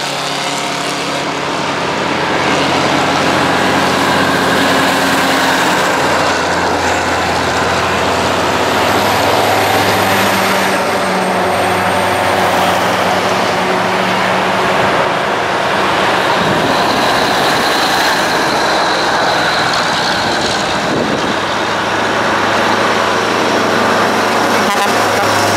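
Vintage Brockway trucks and a full-size pickup driving past on a highway one after another, their engines running steadily over tyre noise on the road.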